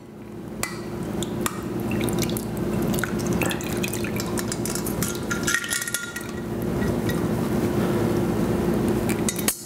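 Soaked tamarind water being poured through a sieve: a steady pour of liquid, with a short break about six seconds in.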